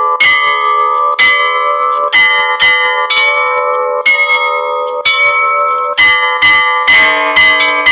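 Russian Orthodox cathedral bells rung in a festal peal: several bells of different pitches struck in a quick repeating pattern, about two strikes a second, each ringing on into the next. A deeper bell joins about seven seconds in.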